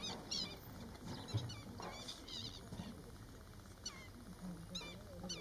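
Black-winged stilts giving repeated sharp, high alarm calls in quick irregular bursts while mobbing an openbill stork that has come near their nest.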